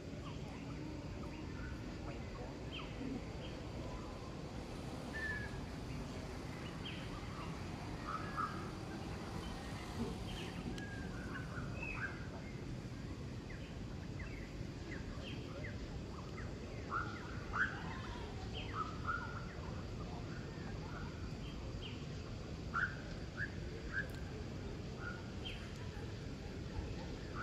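Scattered short bird chirps and tweets over a steady low background hum, with a busier run of chirps about two-thirds of the way through.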